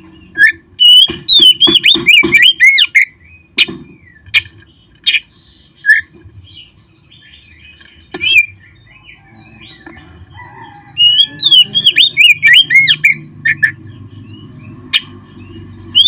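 Oriental magpie-robin (kacer) singing: two loud bursts of rapid, swooping whistled notes mixed with sharp clicks, about a second in and again near the end, with scattered single calls between.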